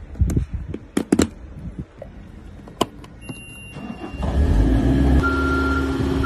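Start-up of a JLG boom lift: a few sharp clicks from the key and controls, a steady electronic beep about three seconds in, then the engine starts and runs loudly. A steady alarm tone sounds over the engine near the end.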